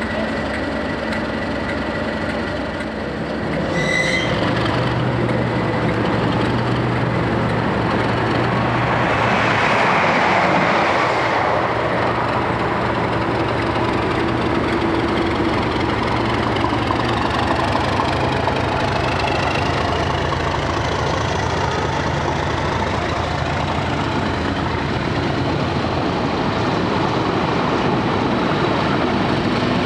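Class 37 diesel locomotive's English Electric V12 engine running steadily as it slowly moves a test train along the track. Its note strengthens about four seconds in, and a louder rushing noise swells and fades around ten seconds in.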